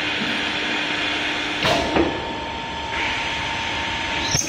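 Automatic glass drilling machine running with a steady motor whine, grinding through the glass sheet in two spells of harsh hiss, each ended by a sharp mechanical clunk, about a second and a half in and near the end.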